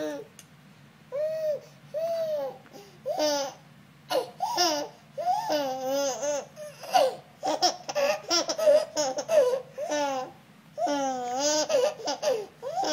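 Baby laughing: a few separate up-and-down coos at first, then rapid short bursts of laughter from about four seconds in, with a longer run of laughter near the end.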